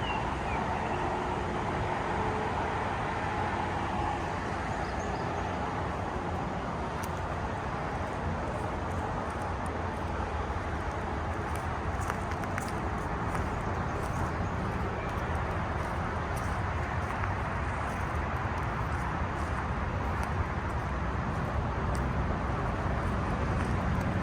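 Steady noise of highway traffic, an even rumble of many vehicles passing out of sight.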